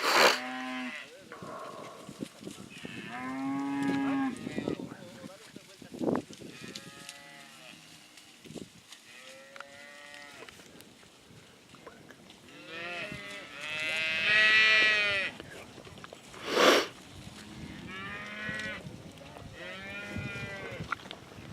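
Herd of cattle mooing and bawling, with separate calls from several animals following one another; the loudest and highest call comes about two-thirds of the way through. A sharp thump comes shortly after it.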